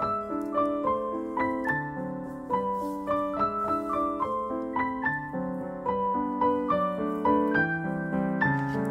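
Background piano music: a light tune of quick notes over held chords.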